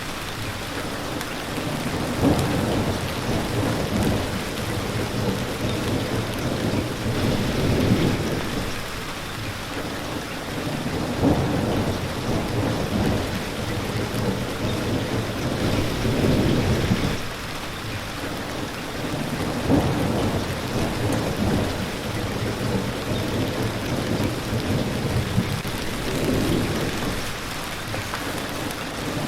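Steady heavy rain of a thunderstorm, with low rolling rumbles of thunder that swell and fade every few seconds.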